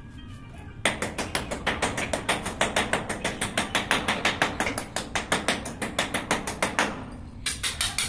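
Quick, repeated hammer blows on a chisel, several a second, chipping the concrete floor around a toilet outlet connector. The tapping starts about a second in and breaks off briefly near the end.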